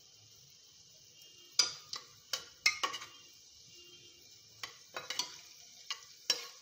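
Faint steady sizzle of hot oil in a cooking pan, with about ten sharp clinks and knocks of a spoon against the pan as onions are added and stirred. The clinks come in two clusters, one from about one and a half to three seconds in and another near the end.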